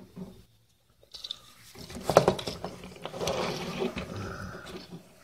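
Plastic parts of a Transformers Siege Cog action figure clicking and rattling as it is handled and pulled apart. There is a cluster of sharp clicks about two seconds in, then scraping and rattling.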